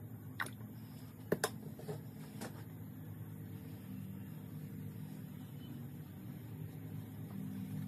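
Steady low mechanical hum, like a motor or fan running, with a few sharp clicks and taps in the first two and a half seconds.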